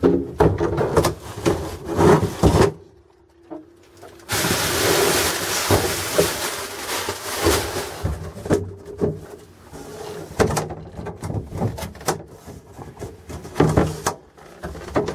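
Things being handled and moved in a motorhome storage cupboard as a portable barbecue is got out: knocks and clatter of hard objects against the wooden cupboard, a short pause, several seconds of rustling, then more knocks and bumps near the end.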